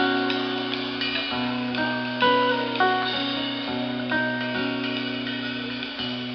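Live band playing an instrumental passage: guitars picking a melody of short ringing notes over sustained low bass notes that change every second or two, heard in a concert hall.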